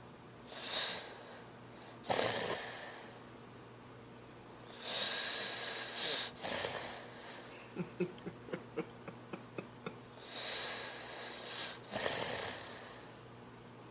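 A sleeping boy snoring, with wheezy breaths in and out every few seconds. Midway, a breath breaks into a run of about ten quick rattling pulses, roughly five a second.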